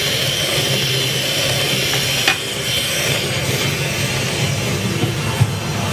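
Electric hand mixer running steadily, with a low hum and a high whine, creaming butter and icing sugar for cookie dough. Two short knocks come about two seconds in and near the end.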